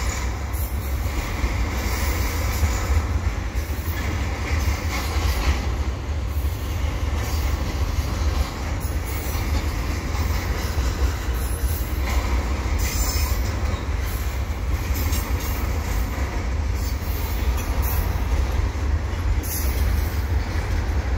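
Freight cars of a double-stack container train rolling past: a steady, continuous rumble of steel wheels on rail, with brief high squeals of the wheels about two-thirds of the way through and again near the end.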